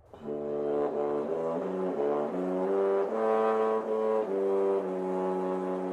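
A short phrase of brass music: chords moving step by step every half second or so, ending on a long held chord that starts to fade near the end.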